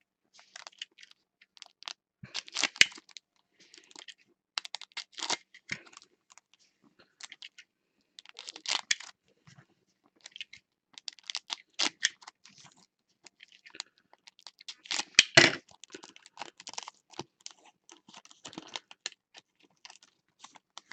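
Plastic wrapping and card-pack wrappers crinkling and tearing as a sealed box of basketball card packs is opened and the packs handled, in irregular crackly bursts, the loudest about fifteen seconds in.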